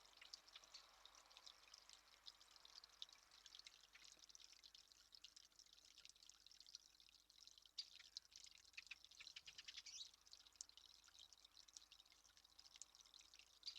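Faint water dripping: irregular ticks that come thickest about eight to ten seconds in.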